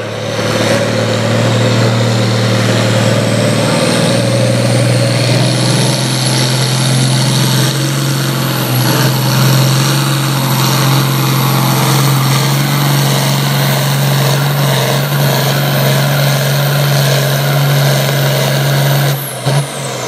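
International Harvester 1066 farm tractor's turbocharged six-cylinder diesel running flat out under heavy load while pulling a sled. A high whine climbs over the first few seconds and then holds steady. The engine note falls away about a second before the end as the pull finishes.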